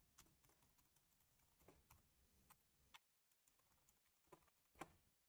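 Very faint computer keyboard typing: a handful of scattered keystrokes, the clearest one near the end.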